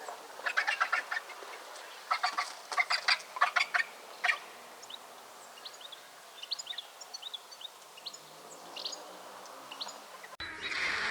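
Vultures giving harsh, rapid stuttering cackles in several bursts, followed by faint short high chirps of small birds. Near the end the sound cuts abruptly to a louder, steady rushing noise.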